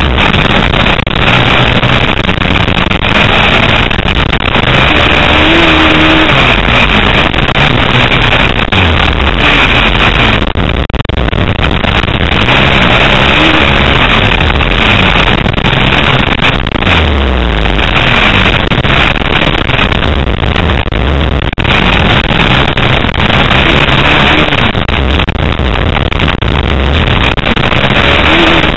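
Motocross dirt bike engine revving up and down over and over as it is ridden around a track, heard onboard, loud, with a dense rushing noise over it.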